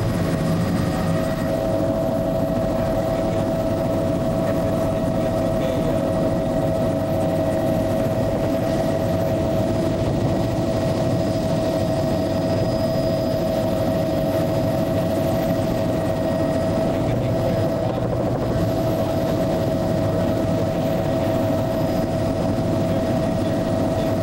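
Helicopter cabin noise heard from inside the aircraft: a steady drone of engine and rotor with a constant whine over it, unchanging throughout.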